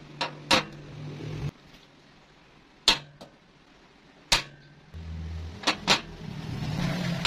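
Steel parts set down one by one on a steel workbench top: a square steel tube, a threaded rod with a nut, a bent steel bracket and a flat steel plate, each landing with a sharp metallic knock, about seven in all. A low rumble starts about five seconds in and grows louder toward the end.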